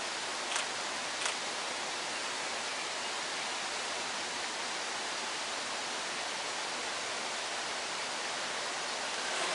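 Steady, even hiss of rain falling, with two short clicks about half a second and a second and a quarter in.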